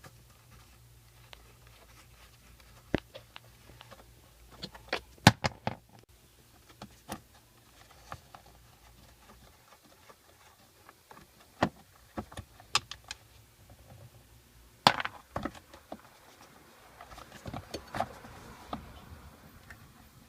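Irregular light clicks and knocks, like small hard parts being handled, scattered throughout, with a faint low hum that stops about halfway.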